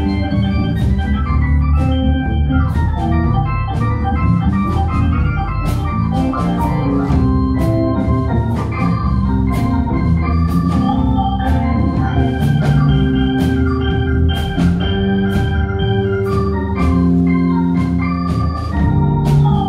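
Live rock band playing an instrumental passage led by an organ, with held chords and runs over a steady drum beat.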